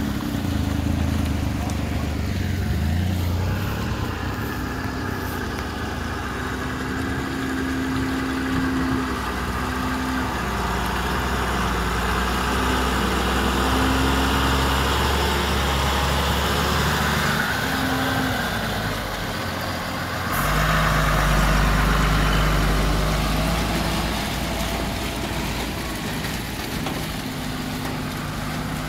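Heavy trucks' diesel engines idling and running slowly in a slow-moving queue. About twenty seconds in, a deeper engine close by gets louder for a few seconds as a truck with a long container trailer pulls past.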